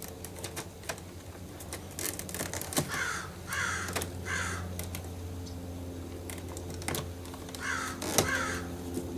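A crow cawing, three caws a few seconds in and two more near the end, over scattered sharp clicks of the plastic door-handle bezel being pried from the door panel.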